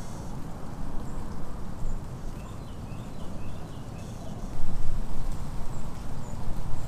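Outdoor field ambience: a steady low rumble, with a small bird chirping a quick run of short high notes from about two to four seconds in.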